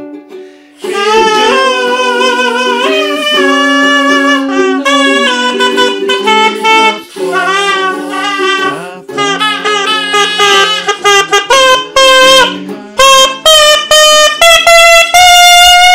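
Zurna, a double-reed shawm, playing a loud melody with wavering ornaments over lower held drone notes. In the second half the notes come in quick, short, repeated blasts.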